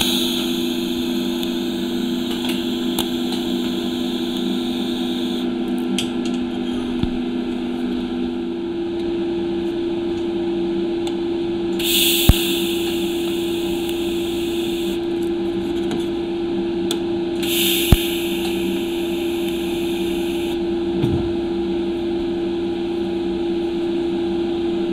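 TIG welding torch tacking thin stainless steel tube sections together. There are three spells of hissing arc: one of about five seconds at the start, then two of about three seconds each in the middle, with a sharp click near the start of the later two. A steady low hum runs underneath.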